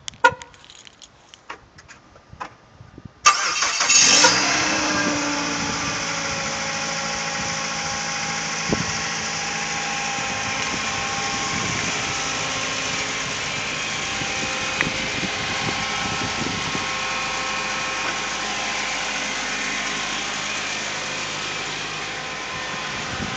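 Mazda 3 car engine cold-starting at about −4 °C. A few short clicks come first; about three seconds in the engine catches with a brief surge, then settles into a steady idle.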